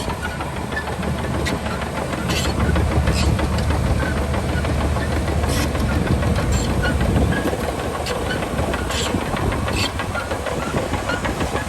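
Heavy diesel earth-moving machinery running with a deep, steady rumble that eases off about seven seconds in, with scattered metallic clanks and clicks.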